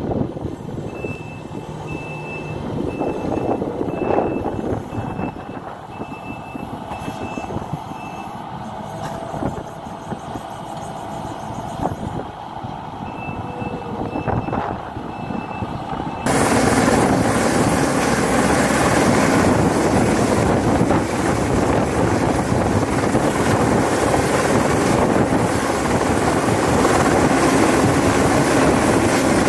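Kubota compact track loader running, its reversing alarm beeping in repeated short pulses. About halfway through this gives way suddenly to a hovering helicopter's rotor and turbine noise, loud and steady.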